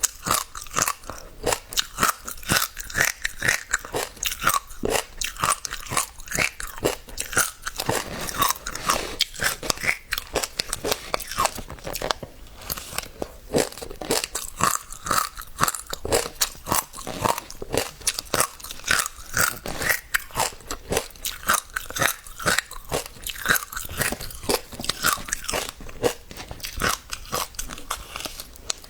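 Passionfruit seeds popping: an unbroken run of sharp, crunchy clicks, several a second.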